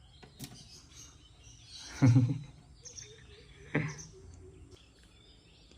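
Faint bird chirping, broken by two short, louder voice-like sounds about two seconds in and again near the middle.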